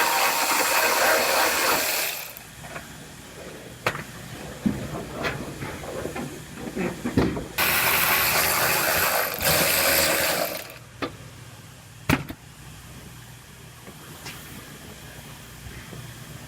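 Compressed air hissing from an air tool in two long bursts of a few seconds each, with scattered clicks and knocks between them.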